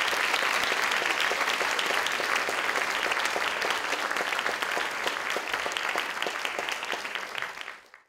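Audience applauding steadily, a dense patter of many hands clapping, which fades out at the very end.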